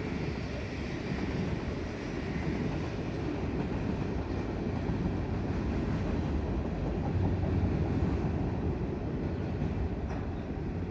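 Freight train rolling along the track: a steady low rumble of the passing cars.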